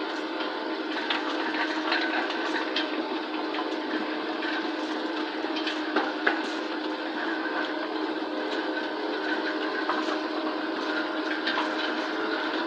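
Self-propelled sugar beet cleaner-loader running steadily as its roller pickup works into a clamp of beets, a machine hum with several steady tones. Frequent short knocks of beets tumbling against the rollers and each other, one louder knock about six seconds in.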